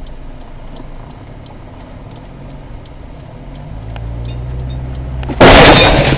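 Car engine running, its tone rising as the car speeds up, then a sudden loud crash of a collision about five and a half seconds in.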